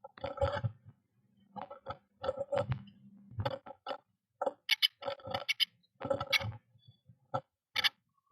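A small bird moving about in its nest inside a birdhouse: irregular scratching, tapping and rustling of claws and nest material, in short clusters with brief pauses, a few sharper clicks near the middle and end.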